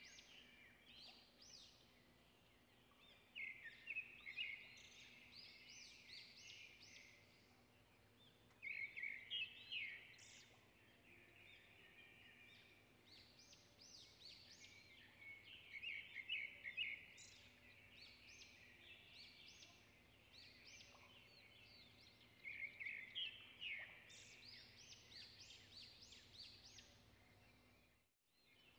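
Hot oil faintly sizzling and crackling as pastries deep-fry in a pan, swelling into about four louder bursts of crackle a few seconds apart.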